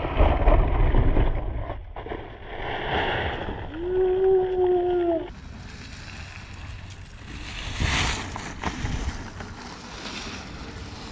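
Rumbling noise of wind on the microphone and mountainboard wheels rolling over a packed-dirt track, heard across several short clips. About four seconds in, a steady humming tone sounds for about a second and a half.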